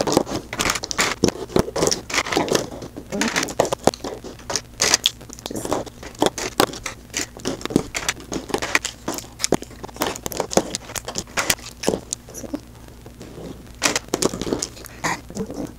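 Lipstick and lip gloss tubes clicking and clattering as they are set down one after another on a hard tabletop, a rapid, irregular run of taps.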